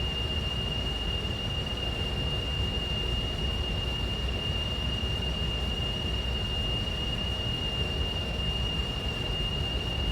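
Air duct or vent sound effect: steady rushing air over a low rumble, with a constant high-pitched whistle that holds unchanged.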